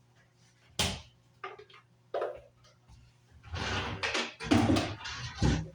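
Objects being handled on a kitchen counter: a sharp knock about a second in, two lighter taps, then a longer stretch of clattering and scraping near the end.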